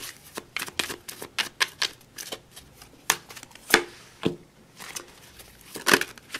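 A tarot deck being shuffled by hand over a cloth-covered table: a quick, uneven run of card taps and riffles, with a few louder slaps in the second half as a card is set down on the cloth.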